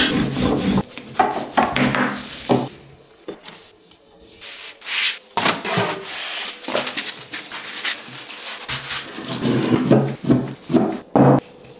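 Kitchen prep on a wooden board: a wooden rolling pin rubbing and rolling over floured dough in rough strokes, then a large knife cutting through rolled yufka flatbread onto the board in a quick run of sharp strokes near the end.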